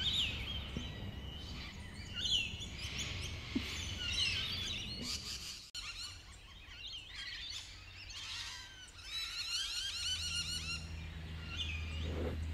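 Birds chirping and singing, many short overlapping calls, over a steady low rumble. The sound cuts out for a moment a little before halfway.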